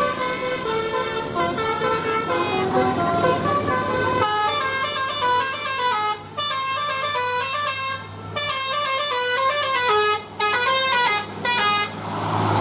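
Bus-mounted Basuri 'telolet' horn, a multi-trumpet air horn, playing a melody of stepped notes, with short breaks between phrases and a new tune starting about four seconds in. A low steady hum runs underneath.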